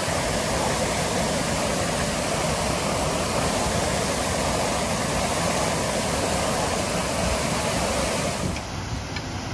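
Water gushing from a fire hydrant knocked off by a vehicle: a loud, steady rush of spray and splashing water. About eight and a half seconds in it drops to a quieter, more distant rush.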